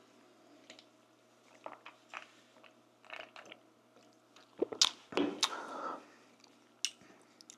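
Close-up eating sounds: a person chewing food with mouth clicks and wet lip smacking, scattered at first, with a louder cluster of sharp clicks and a wet squelchy chew about two-thirds of the way through.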